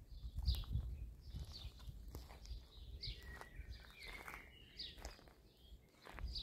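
Birds chirping in the dawn chorus: short high chirps repeating every half second or so, with a lower, longer call in the middle, over a faint low rumble.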